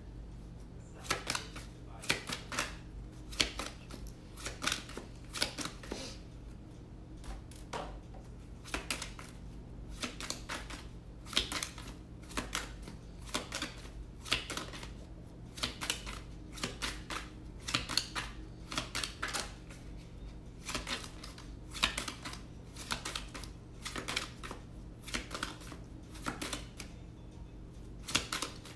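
A tarot deck being shuffled by hand, overhand style: quick, crisp card slaps and flutters in irregular clusters, about one or two a second, over a steady low hum.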